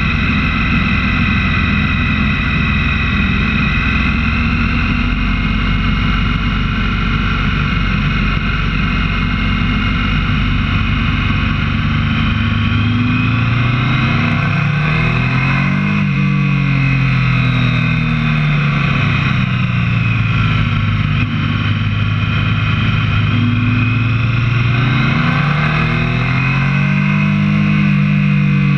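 Motorcycle engine running under way with wind rush. In the second half its pitch falls and rises again several times as the bike slows and accelerates.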